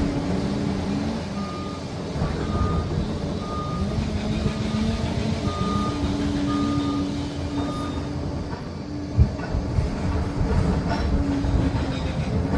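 Liebherr PR 746 crawler dozer's diesel engine running under load, its pitch rising and falling, while its reversing alarm beeps about once a second for several seconds and then stops. A single sharp knock about nine seconds in.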